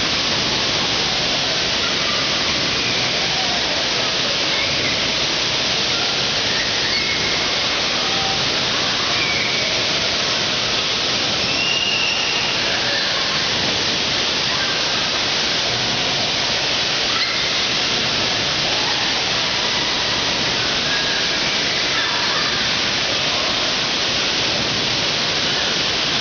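Steady rushing of water from an indoor wave pool and the waterpark around it, filling a large hall. Faint, brief shouts of swimmers come through now and then.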